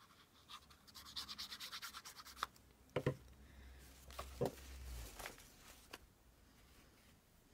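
Glue being rubbed quickly back and forth over paper, a run of short scratchy strokes. A few separate knocks and taps follow, from about three seconds in.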